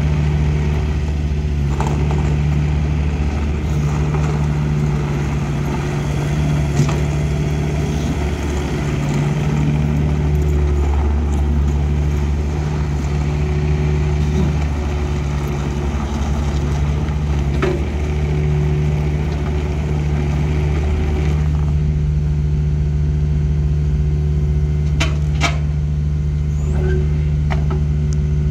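Takeuchi TB240 mini excavator's diesel engine running steadily under load as the machine travels and turns on its rubber tracks over gravel. The track and gravel noise drops away about three-quarters through, leaving the engine running, with a few sharp knocks near the end.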